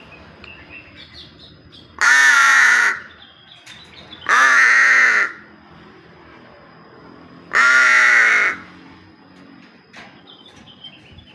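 A pet bird giving three loud, harsh, drawn-out calls, each about a second long and sliding down in pitch at its start, spaced a few seconds apart.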